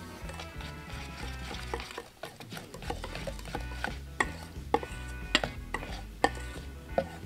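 Wire whisk beating pancake batter in a stainless steel mixing bowl: quick, irregular clicks and scrapes of the metal wires against the bowl, getting sharper and louder about halfway through.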